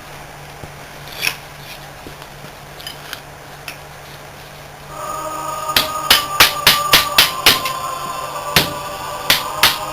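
Hammer blows on the steel stator of a scroll compressor, knocking the copper windings out of the laminations. A few light taps come first, then from about halfway a run of sharp, irregular strikes, two to three a second, with a steady high ringing tone under them.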